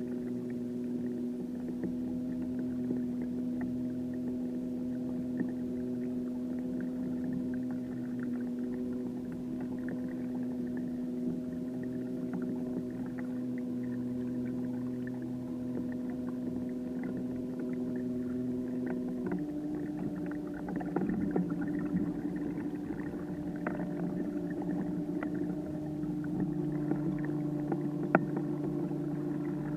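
Electric trolling motor on a kayak running with a steady hum; about two-thirds of the way in its pitch steps up, as at a change of speed setting.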